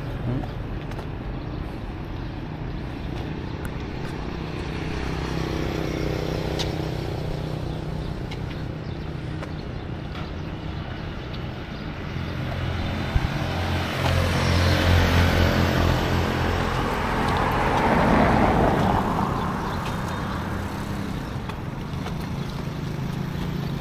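Road vehicle sound: a steady low engine hum, with a vehicle growing louder and then fading as it passes, loudest from about 14 to 19 seconds in.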